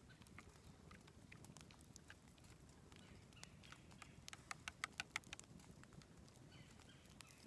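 A wood campfire crackling faintly with scattered small pops, and a plastic spoon stirring coffee in a camp mug. A quick run of sharper clicks comes about halfway through.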